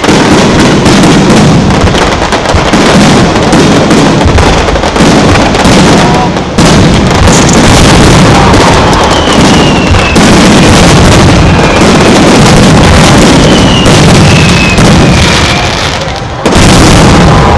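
Aerial fireworks going off in a dense, continuous barrage: overlapping booms and crackling, loud enough to nearly saturate the recording, with fresh heavy bursts about six and a half seconds in and near the end. A few short falling whistles cut through in the middle.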